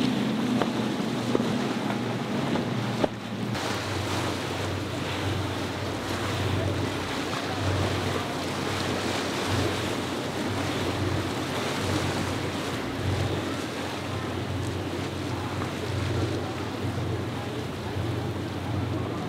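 Boat engines with wind on the microphone and water rushing. For the first three seconds or so the steady note of a Contender's three Yamaha 300 outboards running at speed, then an abrupt change to a lower, unsteady engine hum from a large motor yacht cruising through the chop.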